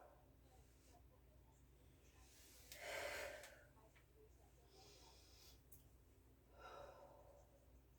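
A person breathing heavily from exercise. Two faint, noisy breaths, the louder about three seconds in and another near the end, over a low steady hum.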